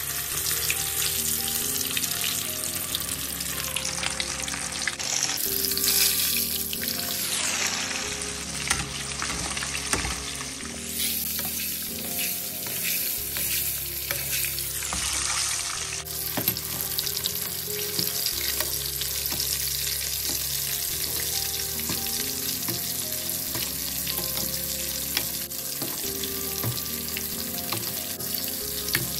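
Masala-coated rohu fish deep-frying in a wok of hot oil: a steady, dense sizzle with a few louder surges as the fish is moved and oil is ladled over it.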